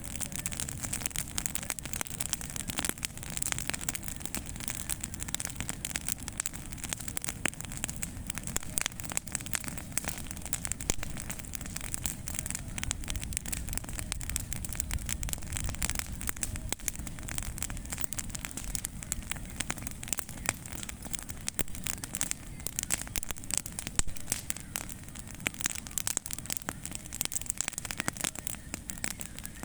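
Bonfire of pruned tree branches burning hard, crackling and popping with dense, irregular snaps over a steady rush of flame.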